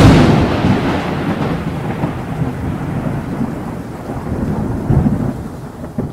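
Thunder sound effect for a lightning logo animation: a sudden loud clap, then a rumble that slowly dies away, swells again near the end and fades out.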